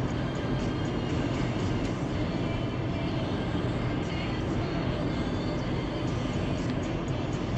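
Steady road and engine noise of a car driving.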